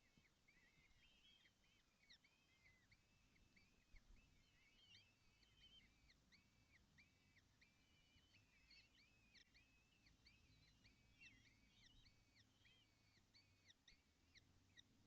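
Faint, rapid high chirping calls of birds, several a second and overlapping, going on without a break.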